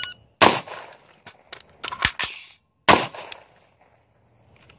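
Shot-timer beep, then a shot from an AR-15 rifle. A quick run of metallic clicks and clacks from the magazine change follows, then a second shot about two and a half seconds after the first.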